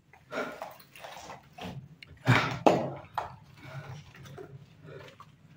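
Footsteps scuffing and crunching over a debris-strewn floor, with two louder crunching knocks a little over two seconds in.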